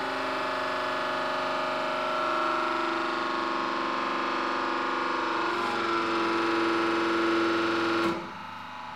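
Hydraulic press pump running under rising load as the 40-ton press squeezes a PLA part flat: a steady whine of several tones that shift in pitch about halfway through. It drops away abruptly about eight seconds in, as the load nears the press's 40-ton capacity.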